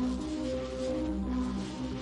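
Music for a contemporary dance routine: a slow line of held low notes that step from one pitch to another about every half second, over a deep steady bass.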